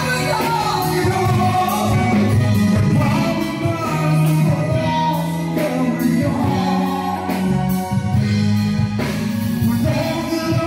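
A woman singing a song live into a microphone over a band of electric guitar, bass guitar, keyboard and drums, heard through the stage PA.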